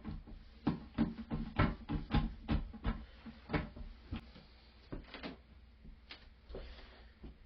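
A quick run of small knocks and clicks, then a few sparser ones near the end: plastic toilet parts being handled and fitted back into place in the tank during a flapper valve replacement.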